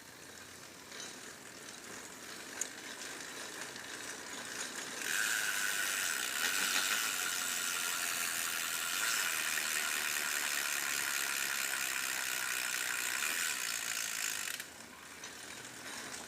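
GW bicycle rear freehub, a loose-ball-bearing hub, freewheeling with its pawls ratcheting in a fast, continuous clicking buzz. It is faint at first, grows louder, jumps up about five seconds in, holds steady, drops off sharply about a second and a half before the end, then begins to come back.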